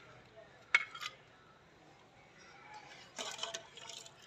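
Steel ladle clinking and scraping against a metal cooking pot as curry is ladled out into a clay bowl: a sharp clink just under a second in, a lighter one right after, and a quick run of clinks and scrapes about three seconds in.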